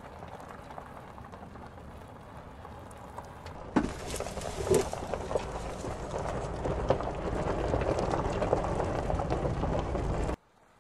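Lamborghini Urus prototype's twin-turbo V8 running, with tyre noise and scattered knocks as it drives over a rough test surface. The sound gets louder and deeper about four seconds in and cuts off suddenly near the end.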